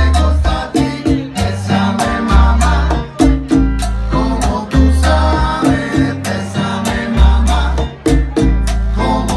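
Latin band playing live: congas struck by hand in a steady pattern over a repeating bass line, with singing.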